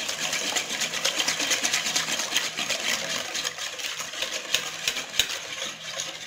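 Wire whisk beating a liquid egg-and-sugar batter in a bowl: a fast, even clicking of the wires against the bowl.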